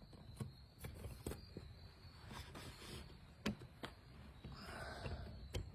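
Newly lit campfire, burning part of a manufactured fire log, crackling faintly with a few sharp pops as it catches.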